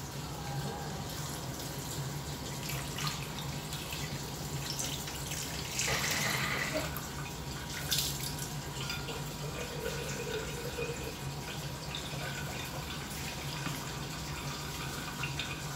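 Pan of rice-wash broth heating toward the boil on a stove burner, giving a steady hissing, bubbling water sound with scattered small ticks. A steady low hum runs underneath, and a louder rush of noise comes about six seconds in.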